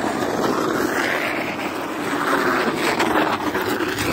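Steady rushing noise of wind buffeting the phone's microphone, swelling a little in the middle.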